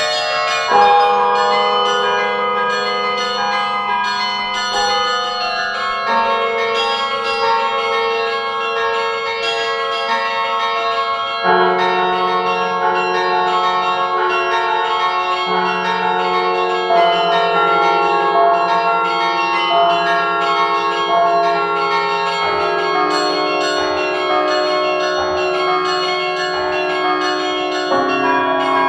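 Carillon of large bronze tower bells played from its baton keyboard and pedals: a quick run of higher bells over long-ringing low bells, the notes overlapping as each bell rings on. The low bells change every few seconds.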